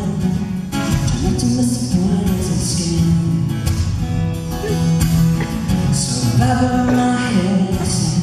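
Acoustic guitar strummed steadily under a man's sung vocal line, a live acoustic country-style song.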